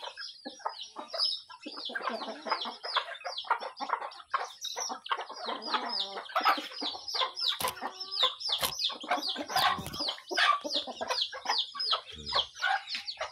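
A flock of chickens feeding: chicks peeping in a rapid, continuous stream of high, falling cheeps over hens' clucking. A few sharp clicks stand out near the middle.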